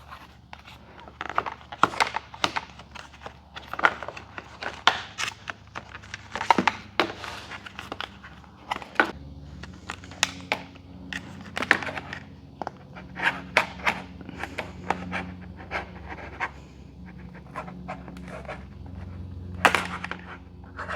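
Plastic trim clips and fender pieces clicking, knocking and scraping as they are pried loose with a flathead screwdriver, in an irregular series of sharp clicks. A steady low hum joins about nine seconds in.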